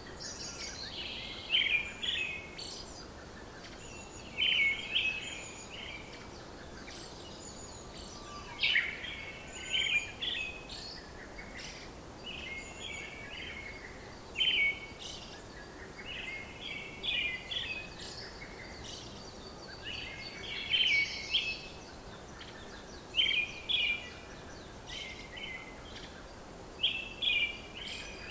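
Songbirds singing: short phrases of quick chirping notes, repeated every two or three seconds, over a steady faint hiss of outdoor background noise.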